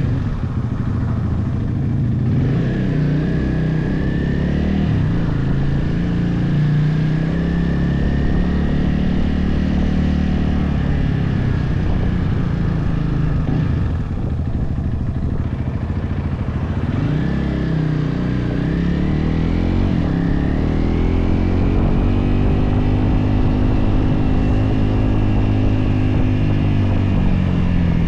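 Motorcycle engine running on the road, its pitch rising and falling several times as the bike speeds up and slows.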